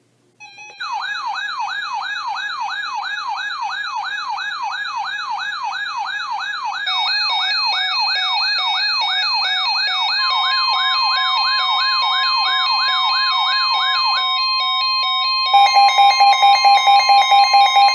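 Electronic alert tones: a siren tone wailing up and down quickly, about two to three times a second. A steady tone joins it about ten seconds in. Near the end the wail stops and a louder alarm tone pulses about twice a second.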